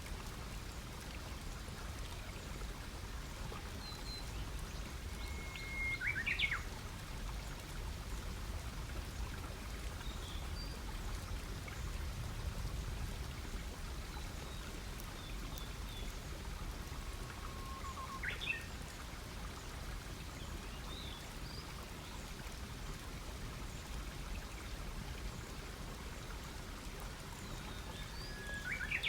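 Campfire burning, a steady low rush with light crackling. A small bird gives a short, quick call three times: about six seconds in, around eighteen seconds in, and right at the end.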